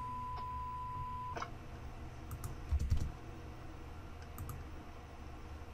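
A steady high-pitched tone that cuts off with a click about a second and a half in, then a few scattered soft computer clicks over a low hum.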